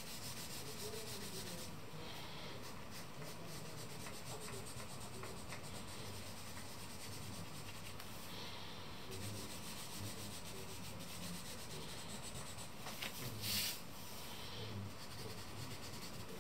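Stick of charcoal rubbing and scratching on drawing paper in repeated shading strokes, with a brief louder scrape near the end.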